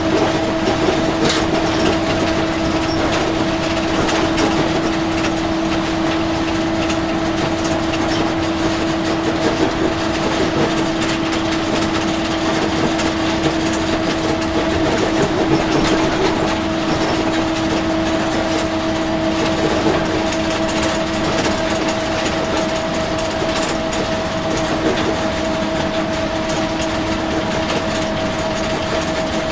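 Inside an empty school bus on the move: steady engine and road noise with a constant drone, and many small rattles from the body and seats throughout.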